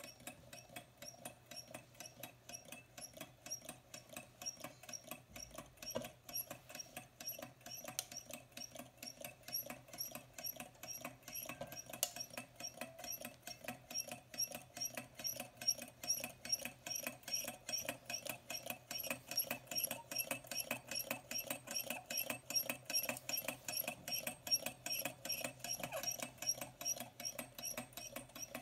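Low-temperature-differential Stirling engine running steadily, its flywheel turning with an even rhythm of light mechanical clicks.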